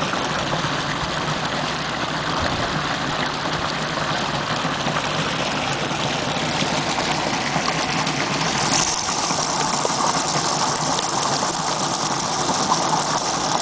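Pumped discharge gushing steadily out of an outfall pipe into a canal, the falling water churning up foam. A higher hiss joins about nine seconds in.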